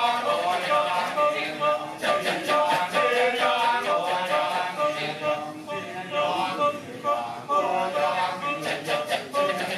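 Kecak chorus of many men singing and chanting unaccompanied in interlocking rhythm, with several pitched vocal lines moving over a dense pulse of short rhythmic vocal strokes.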